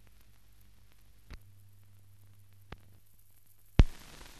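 Low hum and faint noise of a silent film transfer, with two soft clicks, then a sharp loud click near the end, after which a steady hiss sets in.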